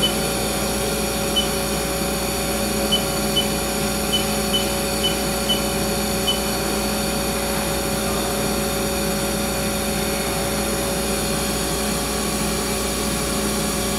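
Steady hum of a running CNC lathe, with several held tones and no change in pitch. A string of faint short high ticks runs through the first half.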